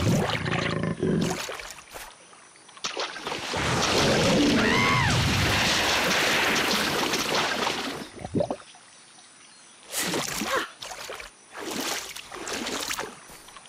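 Cartoon sound effects of heavy water splashing and thrashing as a crocodile and a zebra struggle. There is a loud burst at the start, about five seconds of churning splash in the middle with a brief squeal, and a few short scattered sounds near the end.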